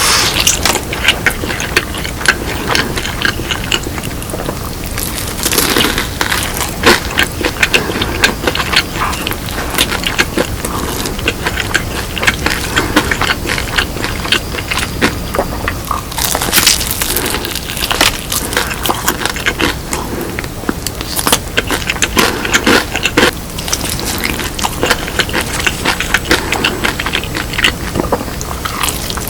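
Close-up crunching and chewing of crisp-coated fried chicken (BHC Bburinkle, dusted with cheese seasoning): bursts of dense crackling bites that come and go.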